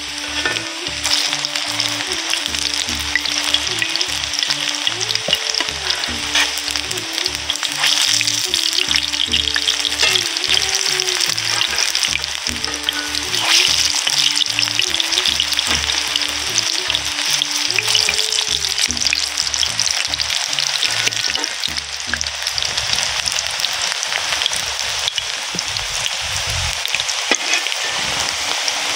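Egg-and-onion pakoras deep-frying in hot oil in an iron kadai: a steady, dense sizzle.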